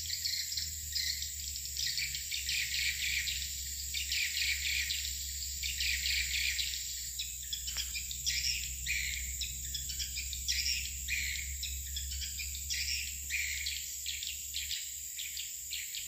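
Swiftlets twittering in a dense, unbroken chatter of rapid high chirps, over a steady high-pitched whine and a low hum, with one short click about halfway through.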